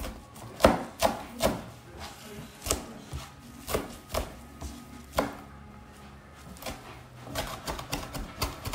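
Chef's knife chopping fresh leafy herbs on a cutting board: irregular sharp knife strikes against the board, about two a second, coming quicker near the end.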